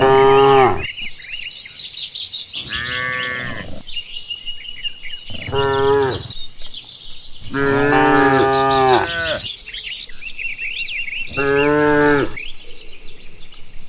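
Cows mooing, five long calls a couple of seconds apart, the longest nearly two seconds. Birds chirp in the gaps between the calls.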